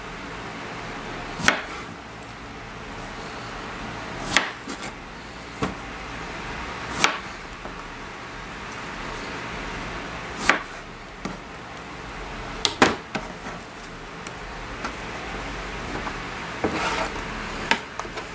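Kitchen knife cutting strawberries on a cutting board: sharp single knocks of the blade meeting the board, irregular and a few seconds apart, with a brief scraping rustle near the end, over a steady faint hiss.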